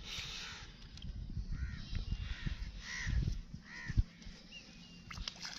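Crows cawing, about four short calls roughly a second apart, over low rustling and a single thud about four seconds in as a landing net holding a carp is handled on sand.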